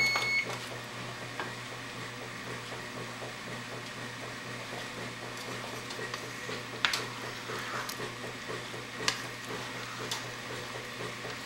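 Steady low hum with a faint hiss, typical of a kitchen fan or appliance running. A short electronic beep sounds right at the start, and two light knocks come later.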